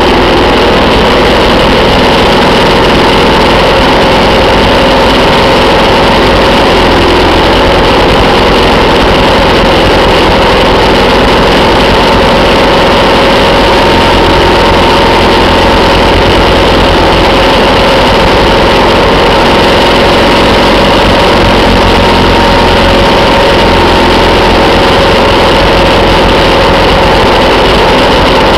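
Motorcycle engine running steadily at cruising speed, its pitch nearly constant, over a steady rushing noise.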